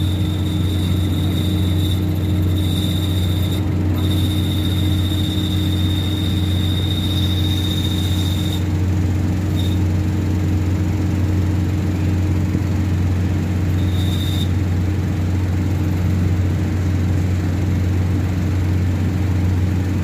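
Car engine idling with a steady high-pitched whistle over its hum. The whistle drops out twice briefly, cuts off about eight or nine seconds in, and comes back only in short blips, the longest about fourteen seconds in. The whistle comes from a slack clutch cable: it stops when the cable is tightened.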